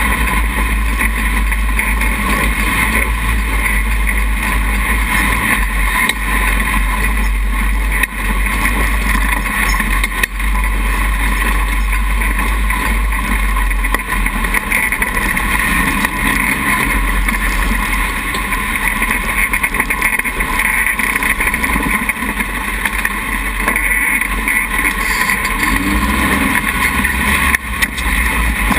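Dune buggy engine running steadily as it drives over sand, with rumble from wind on the microphone.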